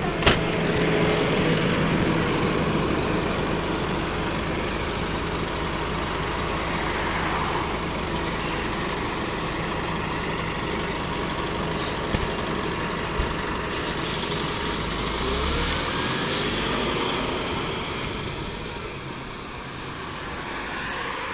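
Scania CN280UB city bus engine idling steadily at a stop, then revving up with a rising whine as the bus pulls away, and fading as it drives off.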